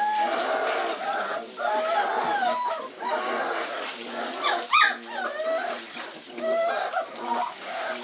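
A litter of four-and-a-half-week-old Dutch Shepherd puppies whining and yelping over and over in many overlapping high cries, with water splashing and streaming off the wet pups as they are lifted out of a tub of bath water.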